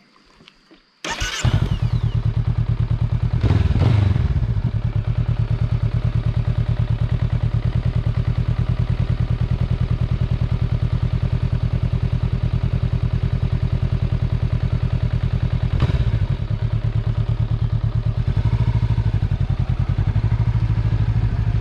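Honda Rebel 500's parallel-twin engine starting about a second in with a sharp burst, then idling steadily, with a short rise in revs a few seconds later and a clunk near the end. In the last few seconds the revs climb as the motorcycle pulls away.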